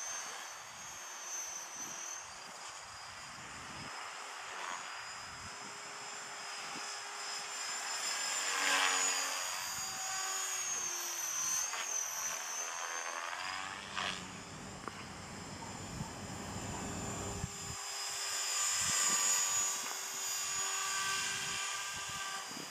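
Electric Align T-Rex 450 Sport radio-controlled helicopter in flight: a high, wavering whine of motor and rotor that rises and falls in pitch as it manoeuvres. It swells louder twice, about eight and about nineteen seconds in, as it comes nearer.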